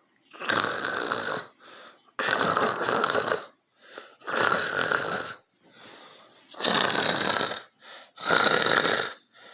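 Loud rasping snoring: five snores, each about a second long and roughly two seconds apart, with a faint short breath between them.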